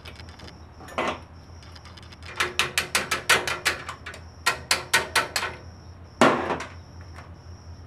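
Light, rapid metal taps, two quick runs of about six a second with a faint ring, driving the wrist pin out of a GY6 150cc engine's piston so the piston can come off the connecting rod. A louder single knock comes about a second in and again just after six seconds.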